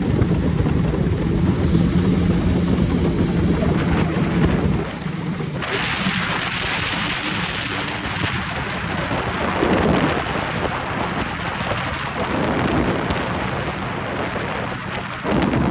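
Racing boat engine running with a steady low drone. About five seconds in, a loud rushing hiss of wind and water takes over. The engine drone comes back strongly near the end.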